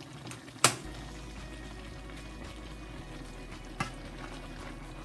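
Pinakbet with pork simmering in a stainless steel pan with a steady bubbling sizzle. A serving spoon knocks sharply against the pan twice, loudly about half a second in and more lightly near the end.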